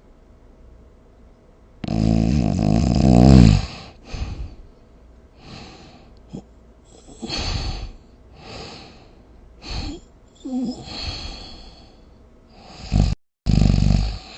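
A person snoring: one long, loud, rattling snore about two seconds in, then a run of shorter, quieter snores and breaths at irregular intervals, and another loud snore near the end after a brief break.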